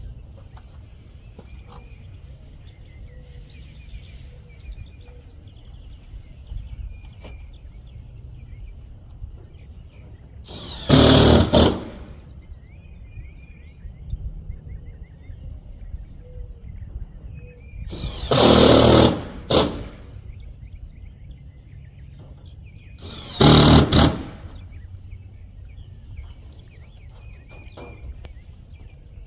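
A power screwdriver driving screws into metal siding: three short runs of about a second each, the middle one a little longer.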